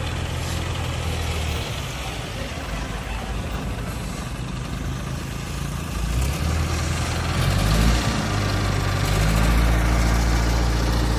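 Diesel engine of an ACE Hydra mobile crane running steadily, growing louder near the end.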